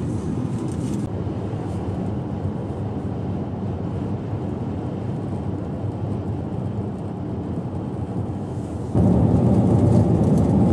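Steady low rumble of a car's road and engine noise heard inside the cabin, which jumps louder about nine seconds in.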